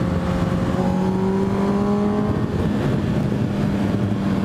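Motorcycle engine running while riding at road speed, with dense wind and road noise. The engine note rises slightly a second or so in as the bike speeds up a little, then holds steady.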